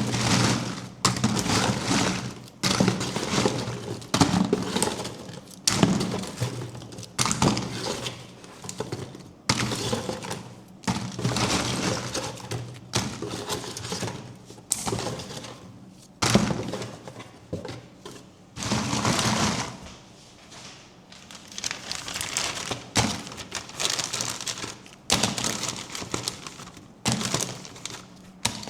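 A chocolate surprise egg being unwrapped and broken open by hand: a string of short crackles, snaps and cracks from the foil and the shell.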